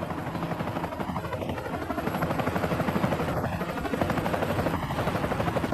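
Small helicopter's rotor chopping with a rapid, even beat as it lifts a heavy load.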